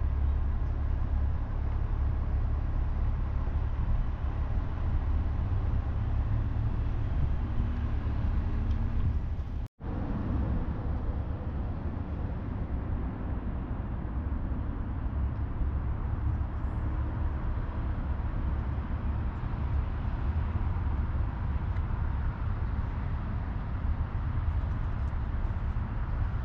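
Steady outdoor background noise: a low rumble with a hiss over it. It cuts out for an instant about ten seconds in.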